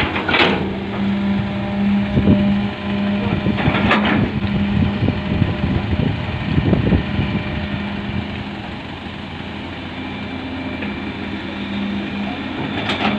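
Heavy-equipment engine running steadily with a constant hum, with a few sharp knocks near the start and about four seconds in.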